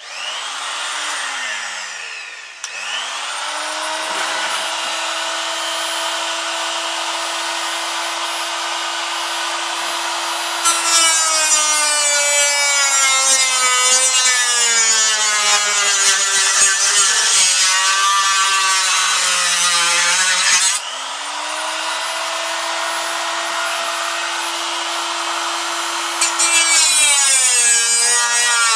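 Electric cut-off tool spinning up with a rising whine, briefly letting off and starting again, then running at speed. About eleven seconds in it bites into a vacuum cleaner with a loud grinding rasp, and its whine sags under the load. It runs free again with the pitch climbing back, and near the end it cuts again.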